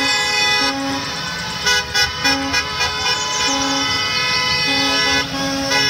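Several school bus horns honking at once: overlapping steady horn tones, with shorter low toots switching on and off.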